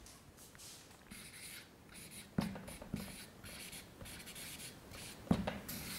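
Felt-tip marker writing on flipchart paper: a run of short, faint scratchy strokes as a word is written by hand, with a few knocks in between, the loudest near the end.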